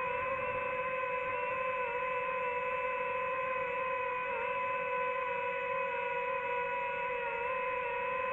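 DJI FPV drone's motors and propellers whining at a steady pitch in flight, the pitch dipping briefly a couple of times as the throttle eases.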